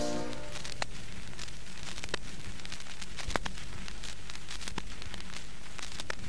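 Vinyl 45 rpm record's surface noise in the silent groove between two songs: a steady hiss with scattered crackles and pops. The last notes of the previous song die away in the first half second.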